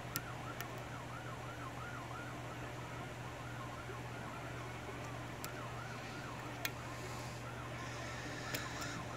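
A few sharp clicks from a pick working a six-pin Corbin dimple lock, over a steady low hum and a faint warbling tone like a distant siren that rises and falls about three times a second.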